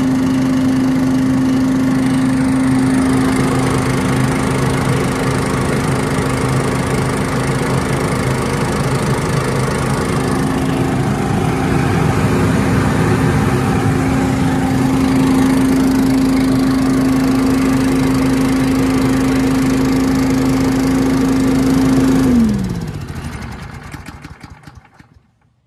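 Predator 212 single-cylinder engine driving a Cyclone Rake leaf vacuum's blower, running steadily at speed through its relocated muffler. About 22 seconds in it is shut off and winds down, its pitch falling as it slows to a stop.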